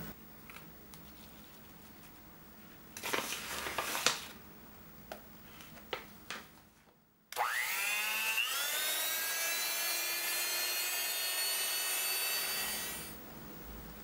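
Electric hand mixer whisking cream and green tea powder: the motor whines up in pitch as it starts about halfway through, runs steadily for about five seconds, then stops. A few knocks and rustles come before it starts.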